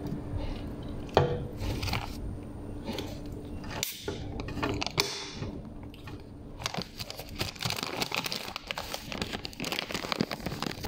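Handling and eating sounds: crunching and crinkling, with a pull-tab drink can cracked open about four seconds in and a short fizz just after. Dense crackling fills the second half.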